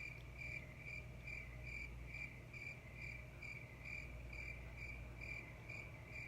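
Faint, regular high-pitched chirping, about two and a half chirps a second, over a low steady hum.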